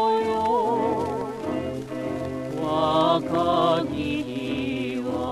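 1940s Japanese popular song played from a 78 rpm record: a singer's held note with vibrato carries over into the first half-second, then the orchestra plays on with a wavering melody line.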